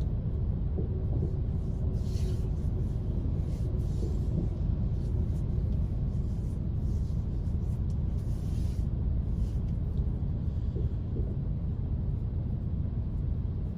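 Steady low rumble of a car idling in stopped traffic, heard from inside the cabin.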